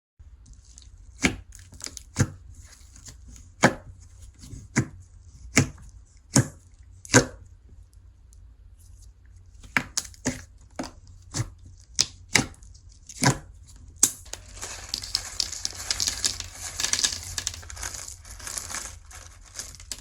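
Slime being squeezed and stretched by hand, giving sharp pops and snaps about once a second, then a continuous fine crackling from about two-thirds of the way in.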